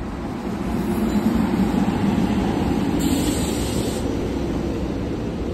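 SEPTA Regional Rail train running with a steady rumble, loudest in the first half. A brief hiss cuts in about three seconds in and lasts about a second.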